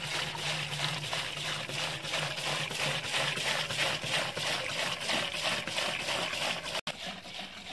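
Diesel pouring from a jerrycan into a steel drum, a continuous splashing gush of liquid. The sound breaks off for an instant about seven seconds in and then goes on quieter.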